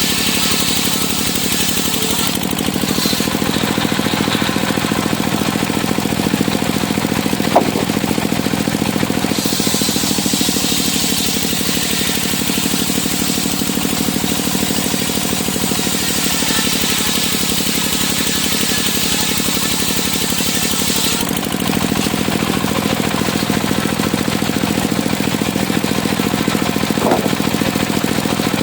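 Engine-driven circular sawmill running steadily, with a high hiss that swells for about twelve seconds in the middle and again near the end.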